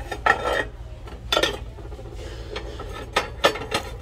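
Stacked ceramic bowls clinking and knocking together as they are handled on a store shelf. There are two clinks in the first second and a half, then a quick run of three or four clinks near the end, over a low steady hum.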